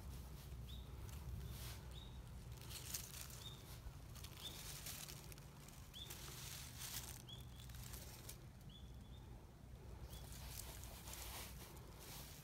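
Dry fallen leaves and pine needles rustling and crackling irregularly as a tortoiseshell cat shifts its feet on the leaf litter while being stroked, with short high chirps of a small bird repeating every second or so until near the end.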